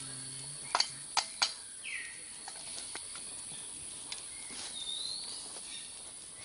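Forest ambience: a steady high-pitched insect hiss, a bird call that falls in pitch about two seconds in, and a rising whistled call around five seconds. Three sharp clicks come close together about a second in.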